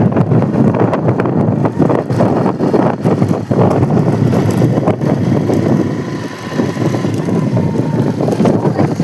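Heavy wind buffeting the microphone on a moving motorcycle, a loud gusty rush with road and vehicle noise beneath it.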